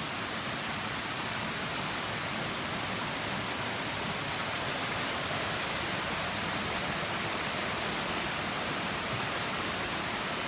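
Steady rush of a river's falling water, an even roar with no breaks.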